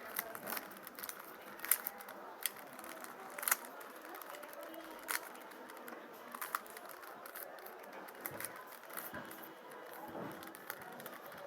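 Plastic Rubik's cube being turned one-handed: irregular clicks and rattles of the layers snapping round, a few sharper ones standing out, over a faint steady hiss.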